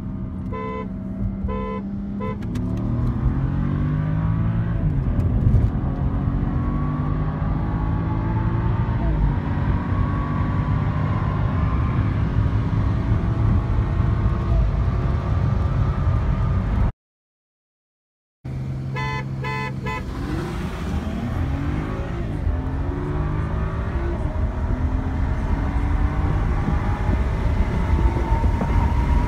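A stock BMW 335i xDrive and a stock automatic 2011 Mustang 5.0 drag racing: a quick series of horn honks starts each run, then the engines pull hard, their pitch climbing and dropping back at each upshift, with heavy wind noise. The sound cuts off for about a second and a half partway through, and a second run starts the same way.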